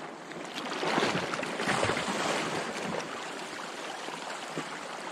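Small sea waves washing and splashing against the rocks at the water's edge, a crackling hiss that swells for a second or two before settling.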